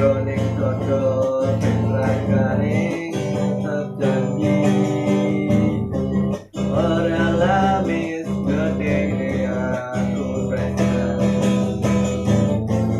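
Acoustic guitar music, plucked and strummed, with a melody line above steady low notes.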